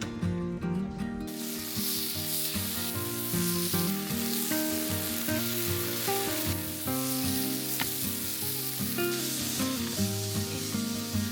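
Breakfast food frying in a hot pan, sizzling steadily from about a second in, with background music playing.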